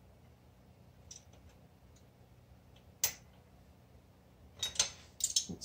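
Small metal clicks and clinks of a wrench and adjusting tool on the rocker arm's valve adjuster and locknut of a BMW R90/6 airhead twin, while the valve clearance is being set: a few faint ticks, one sharp click about three seconds in, and a quick cluster of clinks near the end.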